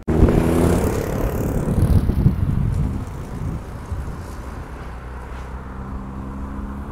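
Motor vehicle engine on a road, loud for the first few seconds, then easing to a steadier, quieter low hum.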